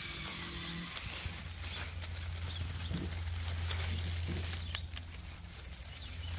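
Dry leaf litter rustling and crackling in scattered small ticks as a baby chipmunk scurries through it, over a steady low hum.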